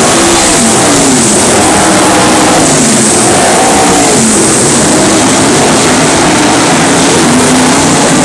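Winged dirt-track sprint cars' V8 engines running hard as the cars race past, loud, with the pitch of several engines rising and falling as they throttle on and off.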